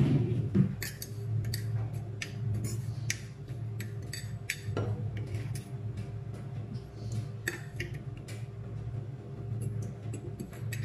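Metal spoon clinking and scraping against a glass jar while scooping out sugar: irregular light clicks throughout.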